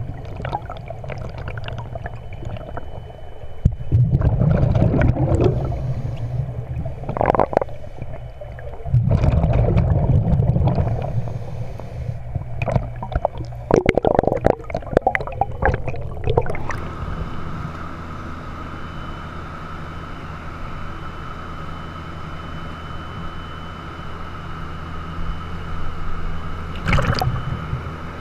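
Underwater scuba sound: gurgling surges of exhaled bubbles from a diver's regulator, coming and going every few seconds, with crackling bubble noise between. About seventeen seconds in, it switches abruptly to a steady hum with a faint constant tone, broken once by a short splash-like burst near the end.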